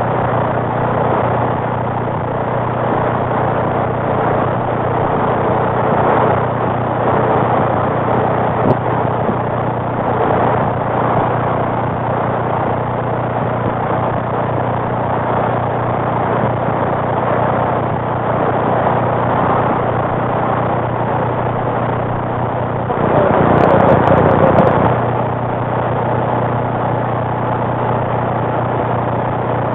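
CB radio receiver on AM channel 19 hissing with static on an open channel, a steady low hum underneath. The static swells louder for about two seconds near the end.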